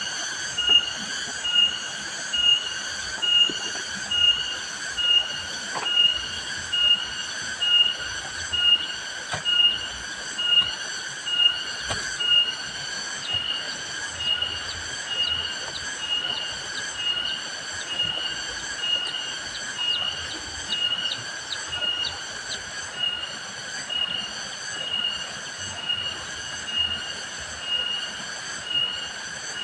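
Cicadas calling: a high-pitched, even drone that pulses a little more than once a second without a break.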